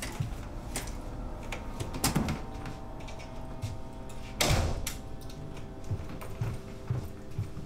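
An apartment door being handled, with knocks and latch clicks and a loud rush of noise about four and a half seconds in as it swings. Soft footsteps follow in the hallway near the end, over a low steady hum.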